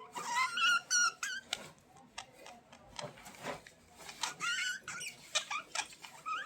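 Budgerigars chirping and chattering: quick, warbling chirps that bend up and down in pitch, mixed with short clicks.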